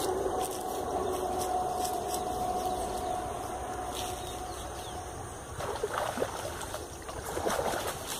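Wind and water noise with a steady hum that fades out about five seconds in, then a few short scuffling bursts near the end as a hooked traíra is fought to the bank and landed.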